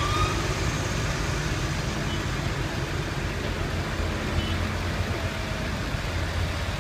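A motor vehicle engine running steadily, a low rumble under a dense wash of outdoor noise.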